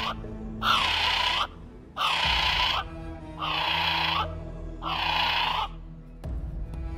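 A kiwi calling: four high-pitched calls in a row, each under a second long, spaced about a second and a bit apart, stopping about two seconds before the end.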